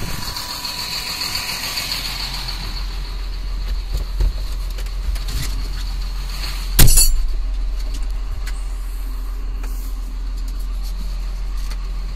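John Deere 6620 tractor's six-cylinder diesel idling with a steady low rumble. About seven seconds in there is a single sharp, loud knock.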